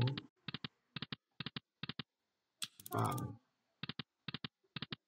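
Online slot machine's reel-spin sound effect: a steady run of paired ticks, about two pairs a second, while the reels spin. About two and a half seconds in, a sharp cluster of clicks marks the next spin starting, followed by a short louder low sound.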